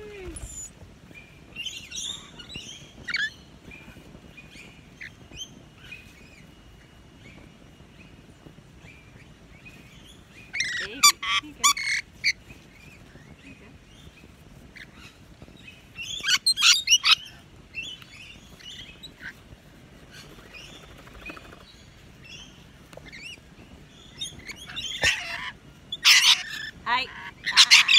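Rainbow lorikeets calling while crowded on a hand, feeding on apple: soft scattered chirps, broken three times by loud bursts of shrill screeching, about ten seconds in, about sixteen seconds in, and again near the end.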